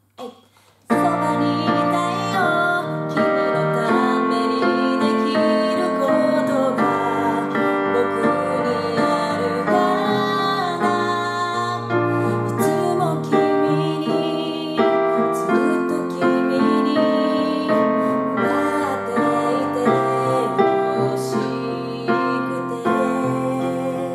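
Female singing of a song melody, accompanied by a Casio digital piano. It starts about a second in and eases off near the end. This is a unison sing-along phrase for pitch-matching practice.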